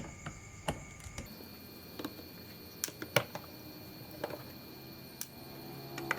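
Scattered light clicks and taps, about a dozen spread irregularly, over a faint steady high-pitched whine. Faint music fades in near the end.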